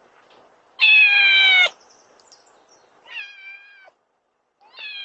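Domestic cat meowing three times to be let in: a long, loud meow with a slightly falling pitch about a second in, a weaker one about three seconds in, and a third starting near the end.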